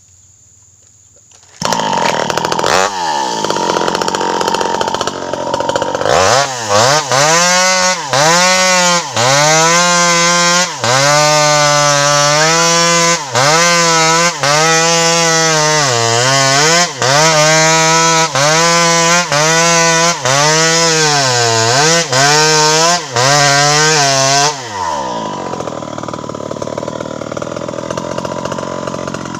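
A home-assembled 52cc chainsaw starts up about a second and a half in and runs. From about six seconds it revs in repeated surges, roughly one a second, each rising and falling in pitch with a brief dip between. Near the end it drops back to a lower, steadier run.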